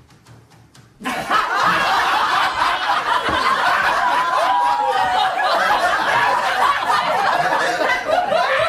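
Faint ticking for about a second, then people laughing and giggling, starting suddenly and going on loudly throughout.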